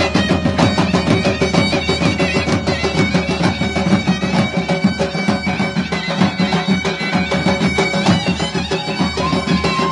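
Armenian wedding band music: zurnas play a festive dance melody over dhol drums beating a fast, driving rhythm, with a frame drum. The music is loud and continuous, and a zurna holds a long high note near the end.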